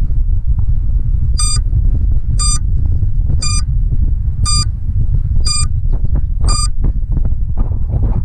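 Wind buffeting the microphone, with six short, high beeps evenly spaced about a second apart, then stopping: an FPV drone's lost-model buzzer sounding after signal loss.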